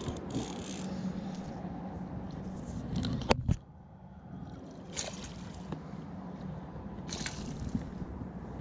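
Water sloshing and splashing as a hooked fish is worked alongside an inflatable boat, with a sharp knock about three seconds in and a few lighter knocks later.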